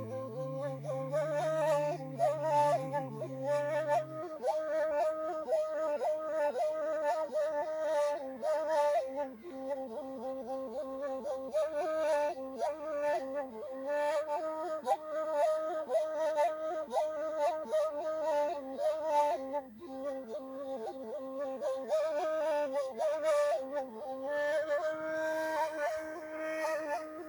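A gasba, the end-blown reed flute of the Maghreb, playing a solo melody full of quick trills and ornaments. A faint low steady tone sounds under it for the first four seconds.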